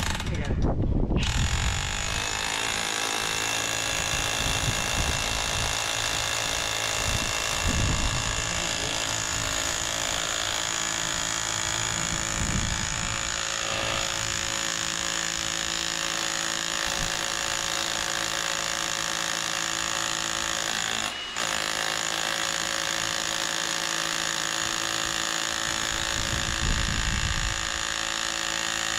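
Demolition hammer running steadily, driving a long steel rod down into the ground. It cuts out very briefly about three-quarters of the way through, then runs on.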